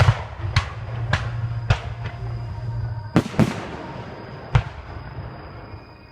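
Aerial fireworks bursting: four sharp bangs about half a second apart, then a quick pair a little past the middle and one more bang about a second later, each echoing away.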